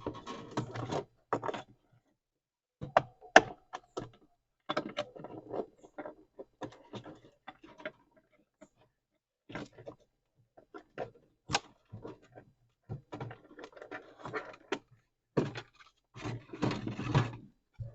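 Irregular clicks, taps and rustles of plastic refrigerator parts and wiring being handled and fitted back together, in short clusters with quiet gaps between them.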